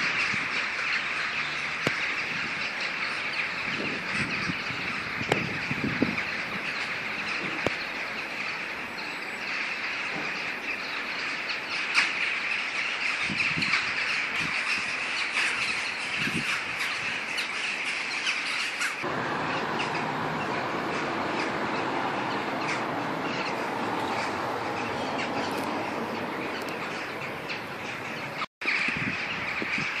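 A large flock of birds flying overhead and calling all together, a dense, unbroken chattering din.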